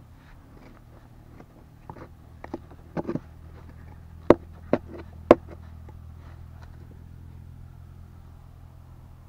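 Hand-digging in stony soil: dirt and gravel scraping, with a series of sharp knocks of stone on stone. The three loudest knocks come a little after the middle, about half a second apart.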